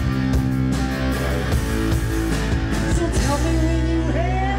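Live rock music from a guitar-and-drums duo: electric guitar playing with the drum kit until about three seconds in, then a held guitar chord, and a man's voice starts singing near the end.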